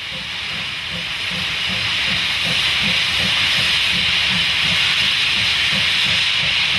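Steam locomotive starting away, a loud steady hiss of steam blowing out low at both sides of the engine, growing louder over the first couple of seconds.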